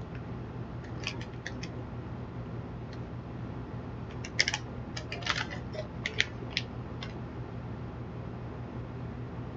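Scattered sharp crackles and clicks from handling a packaged sandwich cookie, in a short cluster about a second in and a longer one from about four to seven seconds, over a steady low hum.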